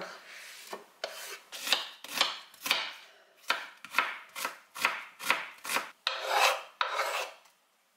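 Kitchen knife chopping an onion on a wooden cutting board, short sharp cuts about two a second. Near the end, a longer scrape as the chopped onion is swept off the board into a bowl.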